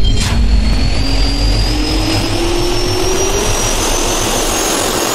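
Jet engine spooling up: a turbine whine climbing slowly in pitch over a steady rush of air, with a short burst just after the start.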